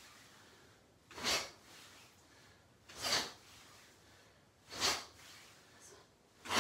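Sharp, forceful exhalations, one pushed out with each karate block or punch, four in all, spaced just under two seconds apart.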